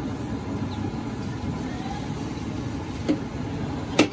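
Steady street traffic din, with two sharp metallic clinks near the end from a steel ladle striking the rim of a large pot of broth.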